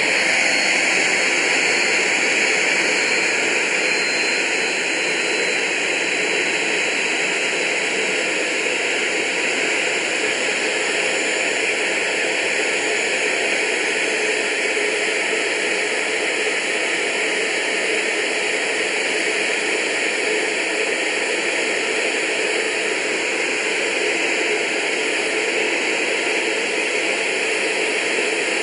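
Steady hiss of a Soko G2 Galeb's Rolls-Royce Viper turbojet and rushing airflow, heard inside the cockpit in flight.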